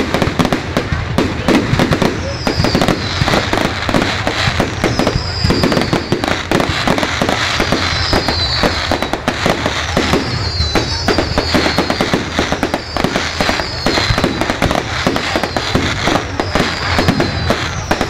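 Fireworks display barrage: a rapid, continuous stream of bangs and crackling from bursting shells. A short, high falling whistle recurs every two or three seconds.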